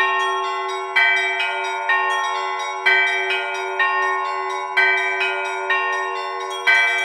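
Russian Orthodox church bells of the Alexander Nevsky Lavra pealing, struck by an electronic automatic bell-ringer. Smaller bells ring in a steady pattern over a low bell tone that hangs underneath, with a strong stroke about once a second.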